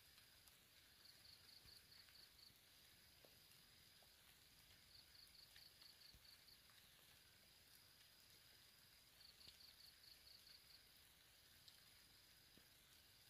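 Near silence outdoors with a faint, thin high insect trill: a steady high buzz that breaks every few seconds into a quick pulsing run.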